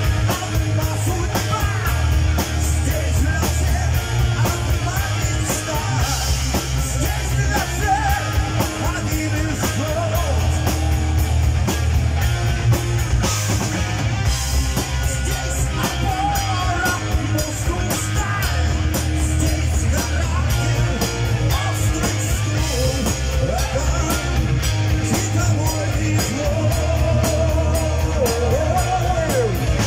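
Live rock band playing loud: electric guitars, bass guitar and a drum kit keeping a steady beat, with a male singer's voice over the top.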